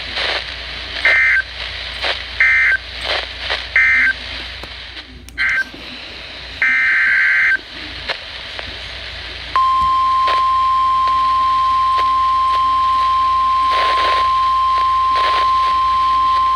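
NOAA Weather Radio SAME data bursts: three short raspy digital bursts a little over a second apart, marking the end of the previous warning, then another short one and a longer burst. About two seconds later the steady 1050 Hz weather-radio alert tone starts and holds unbroken, announcing the next warning.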